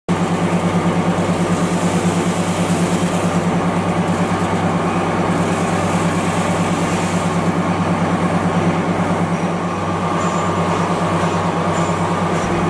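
Screw oil press running while cold-pressing soybeans: a steady mechanical hum with a fast, even throb.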